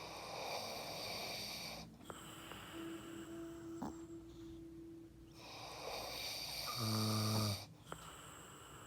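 Snoring: two long snoring breaths about four seconds apart, the second ending in a louder, deeper buzzing snore.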